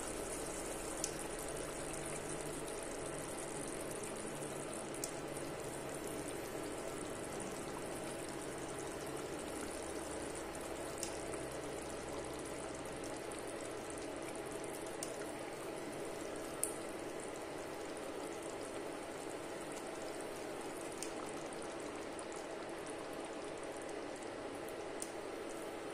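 Tomato and tamarind curry gravy simmering in a pan: a steady, low bubbling hiss, with a few faint soft ticks as the fish pieces go in.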